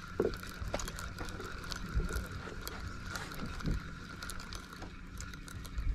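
Spinning fishing reel being cranked to wind in a hooked fish, its gears ticking and clicking, over a steady low hum and a thin steady whine.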